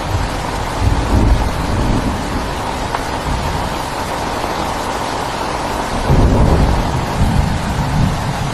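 Heavy rain falling steadily, with low thunder rumbling that swells about a second in and again around six seconds in.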